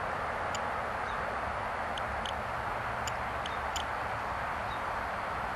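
Steady outdoor background hiss and low rumble picked up by an auto-gain microphone, with a few faint short ticks.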